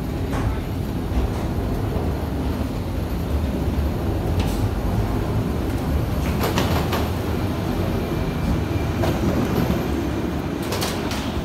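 Steady low rumble of airport jet bridge ambience, with a few short knocks and clicks along the way.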